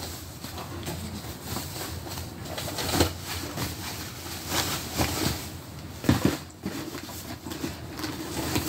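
Handling noise as a small device is packed back into its bag: rustling with a few soft knocks, the clearest about three, five and six seconds in.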